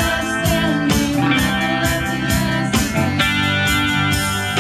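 Live classic-rock band playing: strummed acoustic guitars over electric bass, with a drum kit keeping a steady beat.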